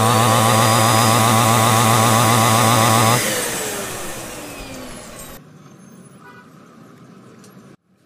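Upright vacuum cleaner running loudly with a steady motor hum and rushing hiss, then switched off about three seconds in, its motor winding down with a falling whine over the next two seconds.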